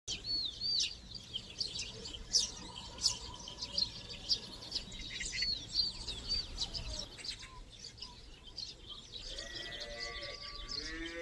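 Many small birds chirping and singing in a dawn chorus, with short whistled notes and trills. Near the end a cow starts mooing.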